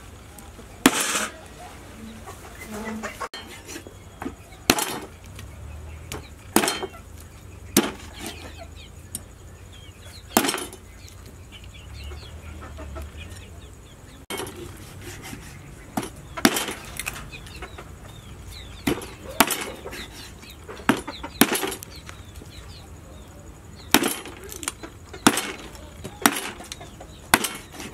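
Cleaver chopping pork bones on a wooden chopping block: sharp, irregular strikes a second or two apart, with a pause of a few seconds in the middle.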